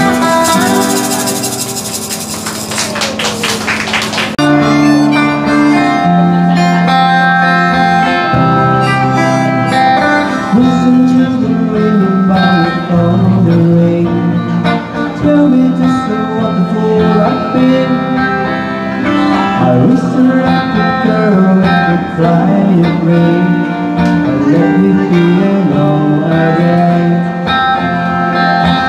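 Live small pop band playing, guitar to the fore over a bass line. A bright hissing wash sits over the first few seconds and then drops away.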